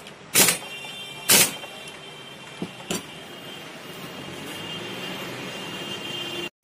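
Pneumatic impact wrench fired in two short bursts about a second apart on a motorcycle's clutch hub nut, tightening it after new clutch plates have been fitted. A couple of small metal clicks follow.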